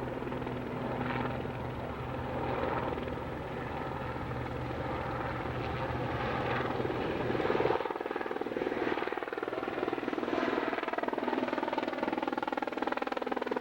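Aircraft engine running with a fast, even beat. A low hum drops out about eight seconds in, and the pitch falls slowly near the end.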